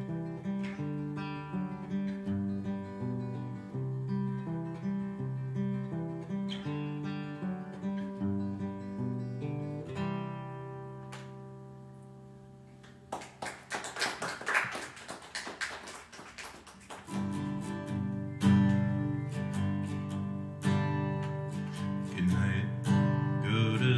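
Solo acoustic guitar played with no singing, closing out a song and fading away about halfway through. A few seconds of applause follow, then the guitar starts the next song, louder.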